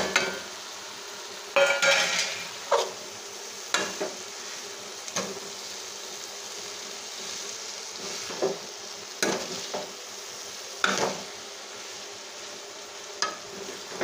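Steel ladle scraping and knocking against a steel kadhai as boiled cluster beans are stirred into a frying masala, about ten irregular clinks and scrapes, one longer ringing scrape about two seconds in, over a steady sizzle from the pan.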